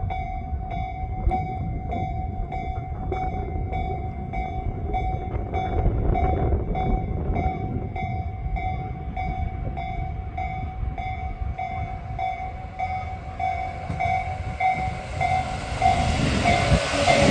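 A level-crossing warning bell dings in a steady, rapid rhythm while a Tobu 8000 series electric train approaches with a low rumble. The train grows louder near the end as it passes close by.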